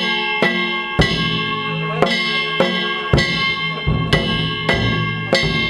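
Danjiri hayashi festival music: metal hand gongs ring on, struck about twice a second, over deep taiko drum beats.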